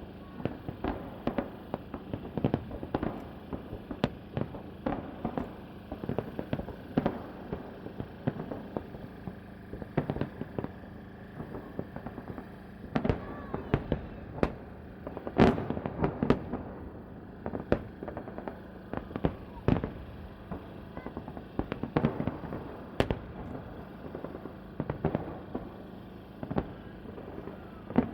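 A fireworks salute going off: a continuous run of booms and cracks from bursting shells, several a second, heaviest about halfway through.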